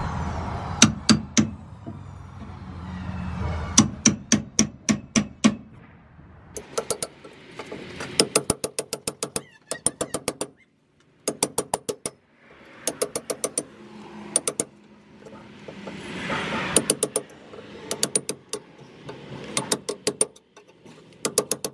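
Hammer striking a steel punch set in a trailer leaf spring's eye, knocking out the stock nylon bushing. The strikes are sharp metallic taps in quick bursts of several, with short pauses between.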